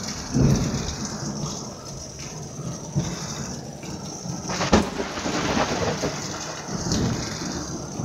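Thunderstorm: steady rain hissing down, with thunder rumbling and one sharp clap of thunder a little past the middle.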